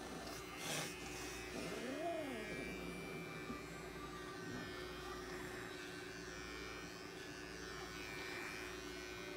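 Small cordless electric pet clipper running with a steady hum as it trims a long-haired cat's fur.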